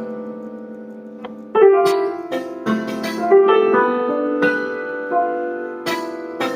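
Piano prepared with 1¼-inch cup hook screws screwed tightly between its strings, played as a series of struck notes that ring on and overlap; the first loud note comes about a second and a half in, after a fading sustained chord.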